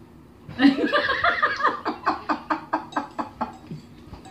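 Laughter: a burst starting about half a second in, breaking into a quick run of short 'ha-ha' pulses that fade near the end.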